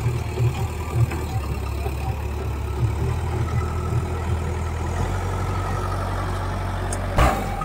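Tata TH76 backhoe loader's diesel engine idling steadily at low revs, with a brief louder burst of noise near the end.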